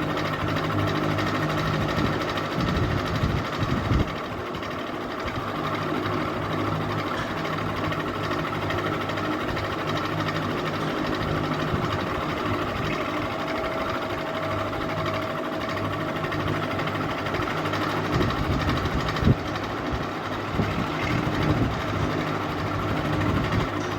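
Ceiling fan running with a steady motor hum and whir. Low thumps break in around three to four seconds in and again between eighteen and twenty-two seconds, with one sharper knock near nineteen seconds.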